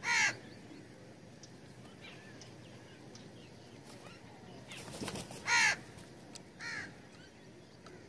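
House crows cawing: three harsh caws, one right at the start, a louder one about five and a half seconds in, and a shorter one a second later.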